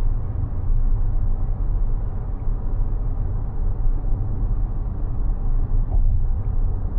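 Steady low road and tyre rumble of a Mazda 6e electric sedan driving along, with no engine note.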